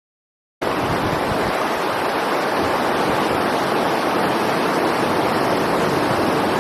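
Steady rush of fast-flowing river water, cutting in suddenly about half a second in after dead silence.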